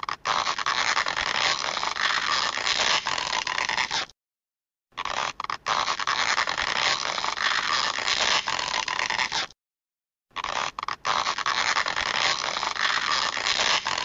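A stretching sound effect played on a loop: a rough, even sound with no clear pitch, about four and a half seconds long, heard three times with short breaks of dead silence between.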